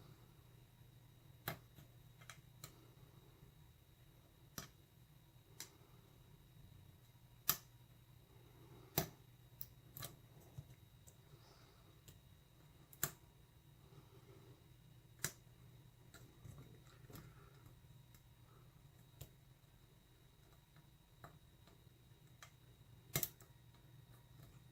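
Small sharp metallic clicks at irregular intervals, about fifteen, from a lock pick and tension wrench working the pin stack of an American Lock Series 748 padlock. These are the serrated pins clicking as they are lifted against strong tension on the core.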